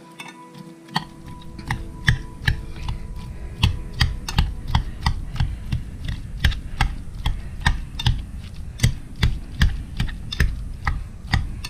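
Wire whisk mashing boiled potatoes with butter in a metal saucepan. It starts about a second in: the wires click against the pan about two to three times a second, over dull thuds from the potatoes.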